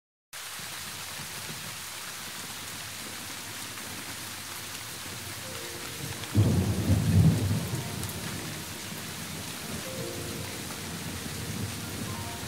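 Steady rain falling, with a sudden low rumble of thunder about six seconds in that lasts a second or two and is the loudest sound.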